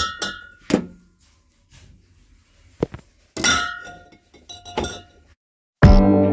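Glass bottles clinking and knocking against each other as they are set down, about six knocks, several leaving a brief ringing tone. Acoustic guitar music starts near the end.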